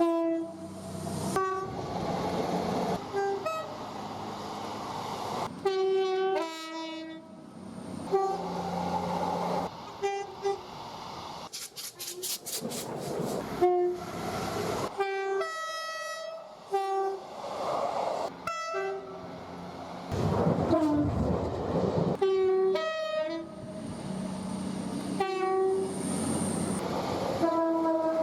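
Train horns sounding in a rapid series of short blasts, one after another with abrupt changes between them, many of them two-tone horns giving a high note and a low note. Between the blasts, locomotive engine and rail noise rumbles.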